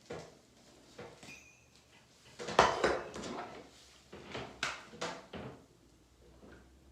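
Irregular knocks and clatter of objects being handled and set down on a hard surface, loudest about two and a half seconds in, with a quicker cluster of taps near the five-second mark.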